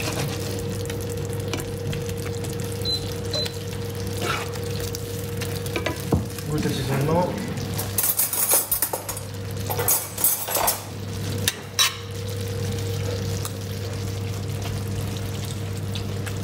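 Vegetables in coconut-curry sauce sizzling and simmering in a cast-iron skillet while being stirred with a wooden spatula, with a cluster of sharp knocks and scrapes of the spatula against the pan about halfway through. A steady low hum runs underneath.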